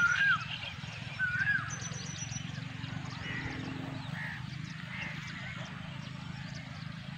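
Birds calling outdoors: a loud rising-and-falling call comes twice in the first two seconds, each with a quick high twittering, then fainter calls, over a steady low hum.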